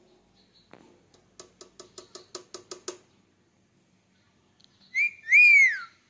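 Indian ringneck parakeet calling: a quick run of about eight short repeated notes, then a brief whistle and a louder whistle that rises and then falls.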